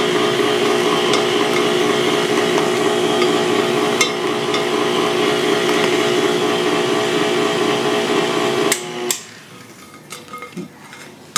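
KitchenAid Artisan stand mixer running steadily, its motor and beater mixing dry ingredients into whipped egg whites in a glass bowl, with a couple of sharp knocks as a spatula strikes the bowl. The mixer is switched off suddenly near the end, leaving a few light clicks.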